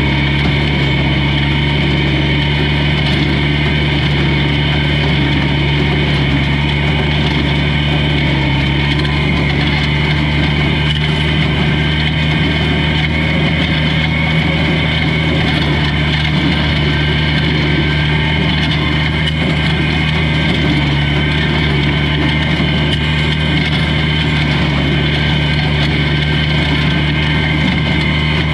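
Old tractor's engine running loud and steady at a constant speed.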